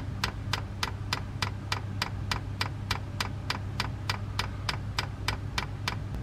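Chinese diesel heater's solenoid fuel dosing pump ticking evenly, about three clicks a second, as it primes the fuel line. A steady low hum runs underneath.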